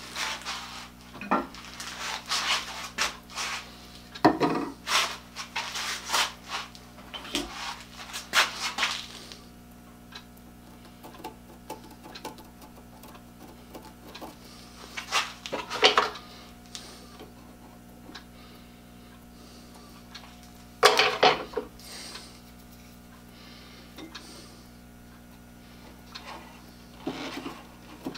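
Tools and wood being handled at a wood lathe: a busy stretch of clattering, knocking and rubbing for about the first nine seconds, then a few separate knocks, over a steady low hum.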